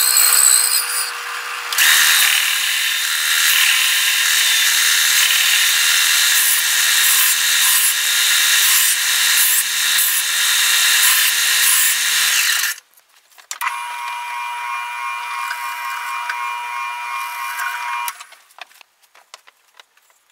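A bandsaw cutting a wooden board, then a benchtop belt sander running as the board's edge is pressed against the belt for about ten seconds. After a short pause a second power tool runs with a steady whine for about four seconds, followed by a few light knocks.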